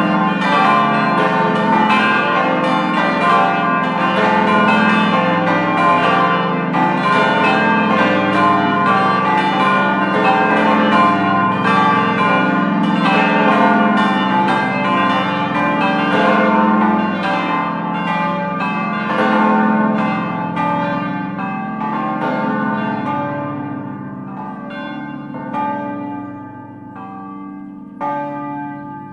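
A set of large church bells hung in an open bell gate, eight bells weighing from 220 kg to 2800 kg, ringing together in a dense, overlapping peal. In the last third the strokes thin out and the sound dies away to scattered single strikes, with one louder strike near the end.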